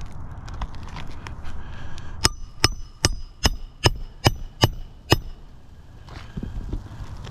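Hammer driving a nail into an asphalt roof shingle: eight sharp, ringing blows in quick succession, about two and a half a second, starting about two seconds in.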